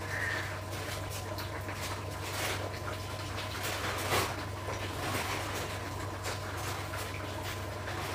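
Chicken curry simmering in a pan on a gas hob, bubbling with irregular small pops, over a steady low hum.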